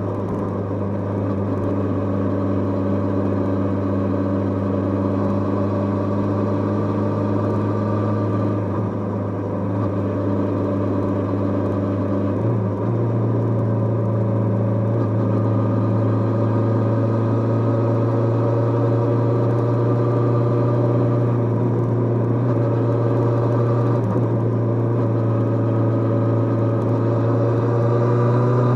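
Kawasaki GPZ550 Uni-Trak's air-cooled inline-four engine running under way at fairly steady revs, heard close up without wind noise. The pitch shifts slightly a few times, then the revs rise near the end as the bike accelerates.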